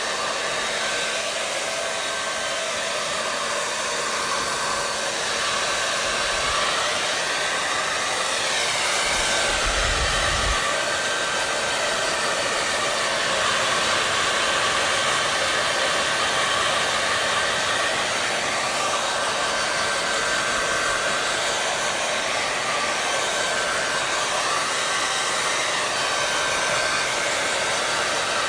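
Hair dryer running steadily: an even rushing blow with a faint steady whine, its tone slowly sweeping up and down a couple of times. A brief low thump comes about ten seconds in.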